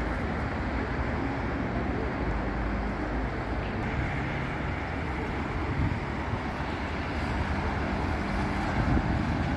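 Steady road traffic on a busy city avenue: cars and buses running past, a low engine drone under the tyre noise.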